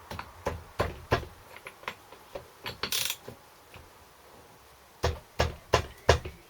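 Flywheel nut on a Briggs & Stratton engine being tightened with a hand tool, making a series of sharp metallic clicks and knocks. The clicks come in a cluster at the start, there is a short rattle about three seconds in, and four strong knocks come near the end.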